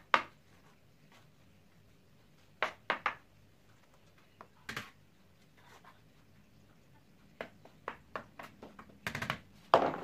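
A plastic scoop digging and scraping through potting soil in a terracotta pot, mixing powdered eggshell into it, in short scattered scrapes and knocks that come thicker near the end.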